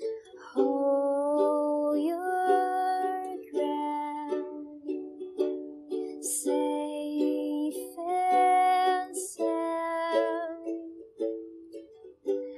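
Ukulele playing a plucked melody over chords, the notes changing about every half second.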